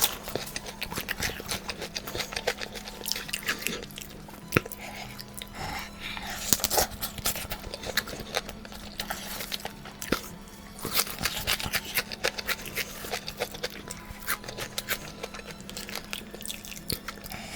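Close-miked chewing and crunching of fried garlic chicken: many small, irregular crunches and wet mouth clicks, over a steady low hum.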